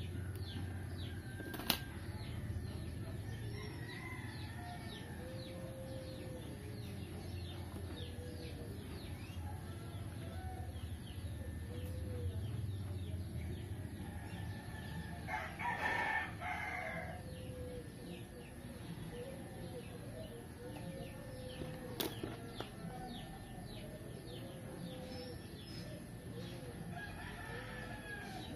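Birds calling in the background: a steady run of short, high chirps several times a second, lower repeated calls, and one louder call about halfway through. A few sharp clicks stand out, about two seconds in and again later.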